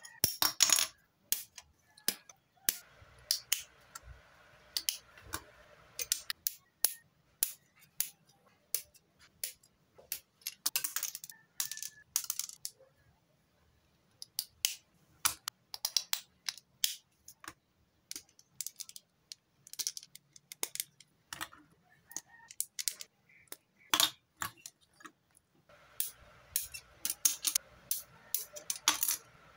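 Hobby nippers snipping parts off a white plastic model-kit sprue, and the plastic parts clicking as they are handled and fitted together. The result is a run of many sharp, irregular clicks and snaps.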